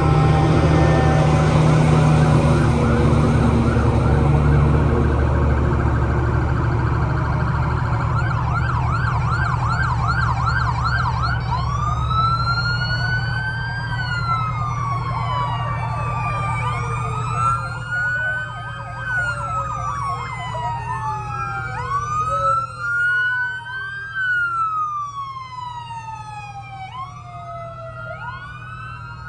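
Sirens of emergency vehicles driving past in procession. A fire engine's heavy engine rumbles close by at first, with a fast yelping siren from about 8 to 11 s. From about 12 s, several wailing sirens overlap, each rising and falling slowly.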